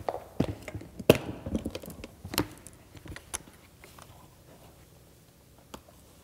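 A black Pelican hard plastic case being opened: its latches are snapped open and the lid and foam are handled. The sound is a series of sharp clicks and knocks, the loudest about a second in.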